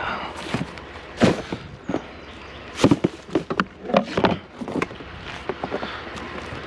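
Irregular knocks, clunks and rustling from items being handled and sorted through by hand, with a few sharper hits about a second in, near three seconds and near four seconds.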